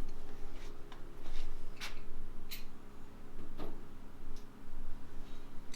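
Scattered small sharp clicks and taps of metal parts and hand tools being handled, about six over a few seconds, over a steady low hum.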